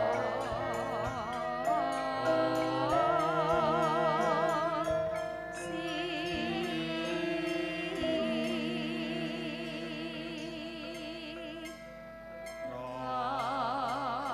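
Two Javanese sinden (female singers) singing a slow melody with wide vibrato over gamelan accompaniment. The singing drops away briefly about twelve seconds in, then comes back.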